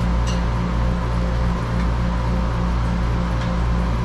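Steady low machine hum with a regular pulse a few times a second. A short click sounds about a third of a second in, with fainter clicks later, from cables and the drive enclosure being handled.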